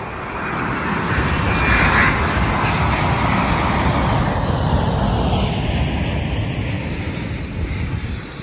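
Twin-engine jet airliner passing low overhead on final approach with its landing gear down: a loud engine roar that builds over the first two seconds, then slowly fades while a whine drops in pitch as the aircraft moves away.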